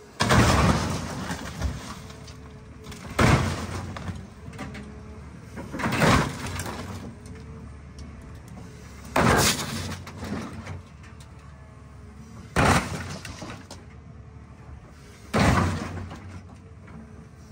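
Excavator bucket slamming down onto an old car's body six times, about every three seconds, each blow a loud crash of crumpling sheet metal that dies away, with the excavator's engine running steadily between blows.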